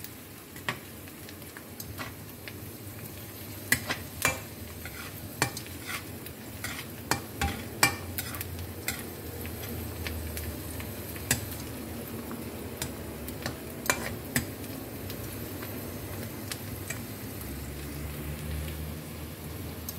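Chopped onion and garlic sizzling as they sauté in a nonstick frying pan, stirred with a metal slotted spatula that clicks and scrapes against the pan. The garlic is not yet browned. The stirring clicks thin out over the last few seconds while the frying goes on.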